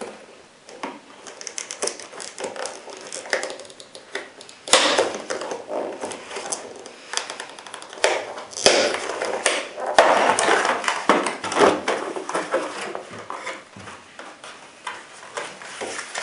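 Packaging being handled and opened by hand: rustling and crinkling with many small clicks and taps, growing louder about five seconds in with a few sharper snaps.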